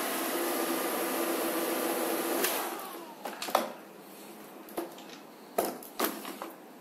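Alfawise X5 robot vacuum's suction motor and brushes running steadily, then cutting out about two and a half seconds in and winding down as the robot halts on an error (Er 08). A few short clicks and knocks follow as the stopped robot is handled.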